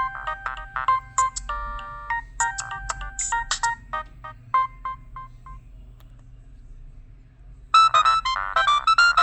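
Nokia 6010 mobile phone playing preloaded ringtones through its small built-in speaker. A tune of short synthesized notes with clicky percussion ends about five and a half seconds in. After a pause of about two seconds, a louder, busier ringtone starts.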